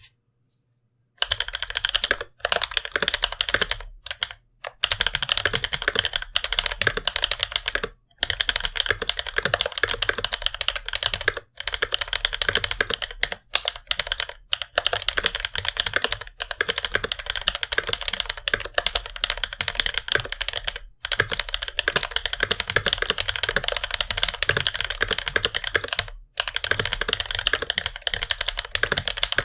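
Mechanical keyboard typed on quickly: Bamboo Leaf Green tactile (non-clicky) switches, lubed with Tribosys 3203, in a brass plate under GMK keycaps. The rapid keystrokes start about a second in and run with a few brief pauses.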